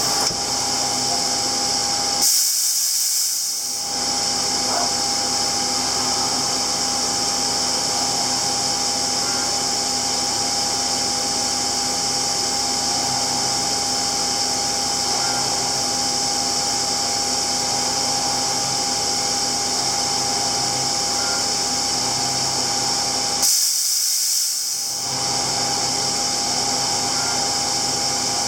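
High-speed machining centre spindle spinning an end mill during tool length measurement, a steady high whine with hiss. Twice, for about a second and a half, the low hum drops away and a sharper hiss takes over.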